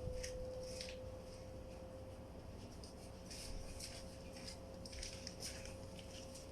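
Faint clicks and rustles of plastic vacuum-cleaner parts being handled while an attachment is swapped, over a faint steady hum.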